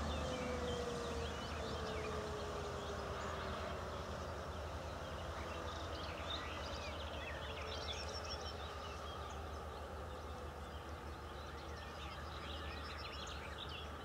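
Motor-driven fire-alarm siren winding down at the end of its alarm call, its falling tone fading out over the first several seconds. Birds chirp throughout over a steady low rumble.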